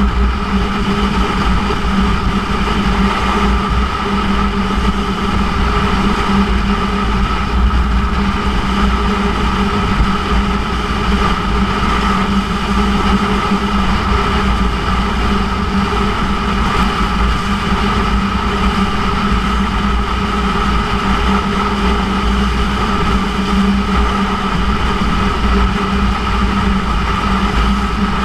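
2006 Yamaha YZF-R1's inline-four engine running at a steady speed through a Yoshimura titanium exhaust, its pitch holding constant, with wind rumbling over the bike-mounted microphone.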